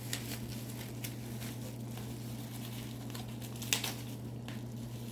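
Light rustling and scattered clicks of hands unwrapping and handling a wrapped bundle of pocket knives, with one sharper click late on, over a steady low hum.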